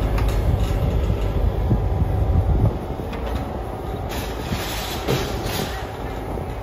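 Diesel engines of a John Deere 35G mini excavator and a Bobcat compact track loader running, a steady low rumble that eases off about two and a half seconds in, with a few light knocks.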